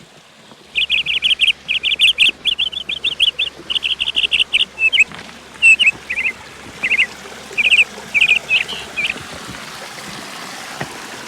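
A songbird calling in fast runs of short, high chirps, then a few separate chirps, stopping about nine seconds in, over a steady hiss.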